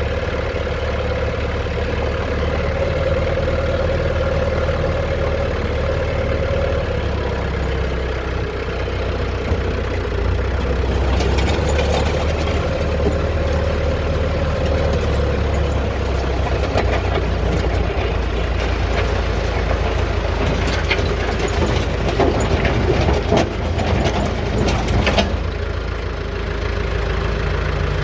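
Engine running steadily with a low hum. From about eleven seconds in there is a long stretch of crackling and rattling over it, which stops suddenly near the end.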